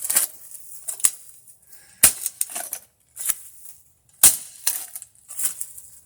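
Hand digging tool chopping into dirt: about six sharp strikes roughly a second apart, the strongest about two and four seconds in, each followed by a brief scrape of soil.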